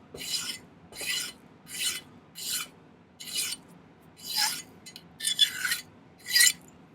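Hand file rasping along sterling silver half-round wire held in a vise jig, in steady back-and-forth strokes. There are about eight strokes, each a short high scratch, a little under one a second.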